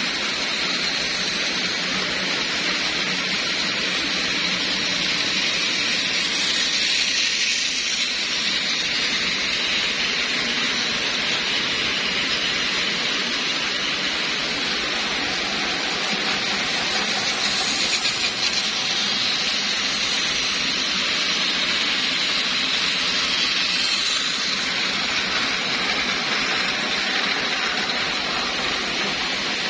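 Several battery-powered toy trains running on plastic track: a steady whirring hiss from their small motors and wheels.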